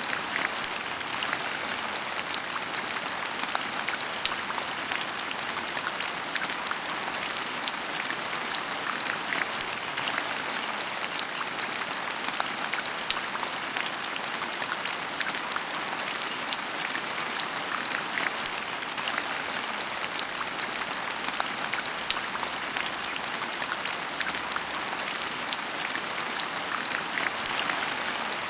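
Heavy rain falling: a steady hiss with many sharp, close drop hits scattered all through it.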